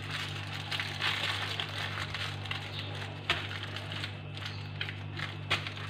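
Aluminium foil crinkling and rustling as hands roll and press a foil-wrapped log, with a few sharper crackles. A steady low hum runs underneath.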